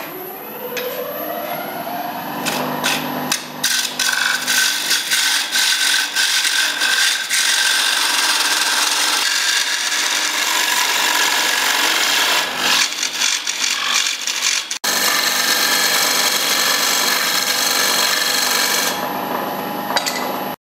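Record Power wood lathe, its pitch rising over the first couple of seconds as it comes up to speed, then a turning tool cutting into the spinning wooden lamp base with a loud, continuous rough scraping as shavings fly. There is a brief break about three-quarters of the way through, and the sound stops abruptly at the end.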